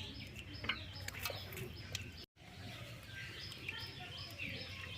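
Birds chirping and calling, short repeated high chirps, over low outdoor background noise, with a sudden brief dropout to silence a little over two seconds in.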